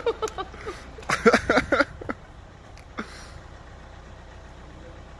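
Winch engine of a slingshot bungee ride running with a steady low hum while the bungee cords are tensioned. A brief loud burst of sound breaks in about a second in.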